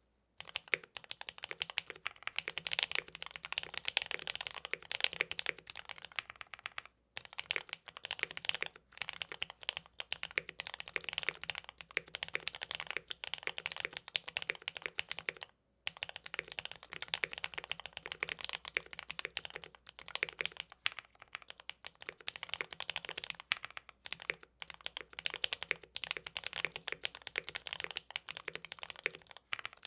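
Continuous fast typing on a MODE Eighty TKL custom mechanical keyboard with Gateron Black Ink V2 linear switches on a POM plate, tape-modded, with stabilisers modded. Dense, rapid keystrokes start about half a second in and pause briefly twice.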